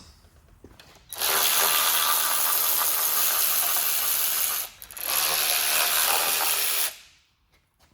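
A power ratchet spinning out valve cover bolts on a small-block Chevy 350: two steady runs of a few seconds each with a brief pause between them, with a hiss.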